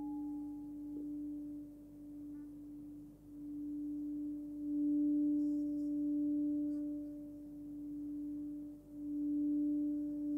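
Hand-forged singing bowl tuned to D, about 291 Hz, played with a suede-covered wooden stick. It gives one steady, pure ringing tone with a fainter overtone above it. The tone swells and dips twice and comes back up each time.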